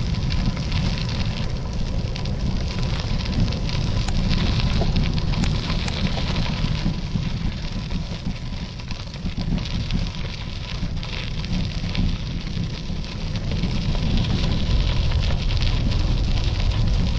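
Wind buffeting the microphone: a heavy, uneven low rumble with a lighter hiss above it.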